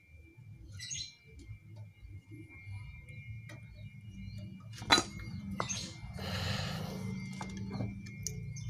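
Metal parts of a motorcycle rear disc brake caliper being handled and fitted by hand. A sharp metallic click comes about five seconds in, then about a second of scraping, with lighter taps around it. Faint bird chirps come near the start and end.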